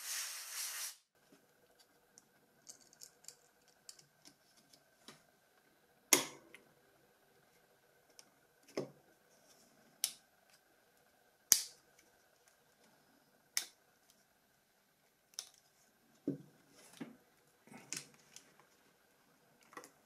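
A hiss that cuts off about a second in, then about ten scattered sharp clicks and taps of small plastic phone parts being handled and fitted, with longer quiet gaps between them.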